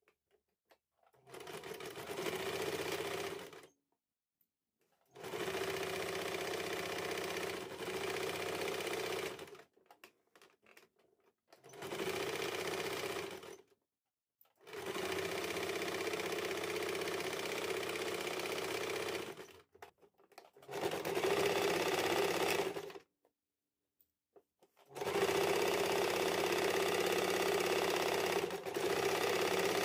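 Electric sewing machine stitching in six short runs of about two to five seconds each, stopping and starting between them.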